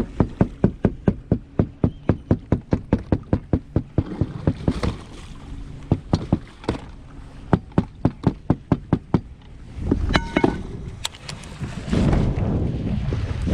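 A fast, even run of sharp knocks, about five a second, for the first few seconds, then broken into scattered groups. Wind rumble on the microphone swells near the end.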